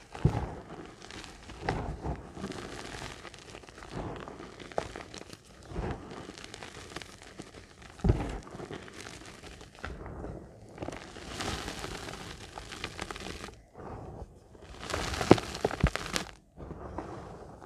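Hands crushing and squeezing crumbled reformed gym chalk in the palms: dry, powdery crunching and crumbling with soft thumps every couple of seconds. Past the middle the crunching turns denser and crisper as handfuls are pressed and tossed.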